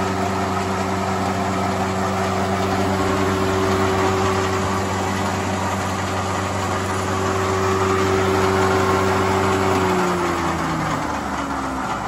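SR-4 thickness planer running empty, its electric motor and cutter block giving a steady hum with a whine over it. The machine is freshly overhauled, with new bearings on its shafts. About ten seconds in it is switched off, and the pitch falls as it coasts down.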